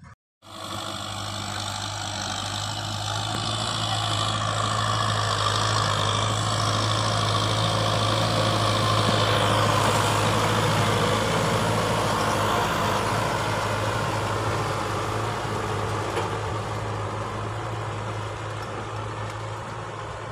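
Kubota M6040 tractor's diesel engine running steadily under load while its rear rotary tiller churns dry soil. It grows louder as the tractor passes close by, is loudest about halfway through, then fades as it moves away.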